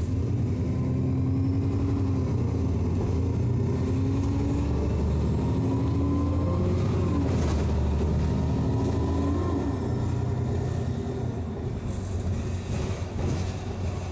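Alexander Dennis Enviro400 double-decker bus heard from inside the passenger saloon while under way: a steady low engine drone with a whine that rises over and over, about every couple of seconds.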